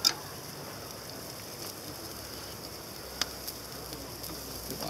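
Steady rushing noise of a waterfall, even and unbroken, with a single sharp click about three seconds in.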